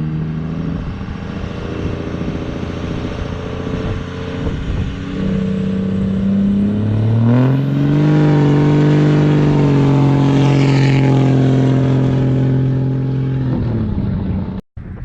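A vehicle engine running at raised revs. It shifts between speeds, then climbs about halfway through and holds high before the revs drop off near the end.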